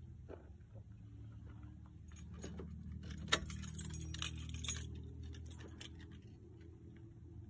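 Car engine idling with a low steady hum. From about two seconds in comes a cluster of light metallic clinks and jingles inside the car, the sharpest one a little past the middle.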